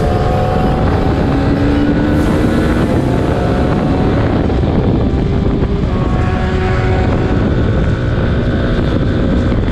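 Single-cylinder KTM RC sport bike engine pulling at highway speed under heavy wind noise on the helmet microphone. The revs climb slowly, drop about six seconds in, and climb again.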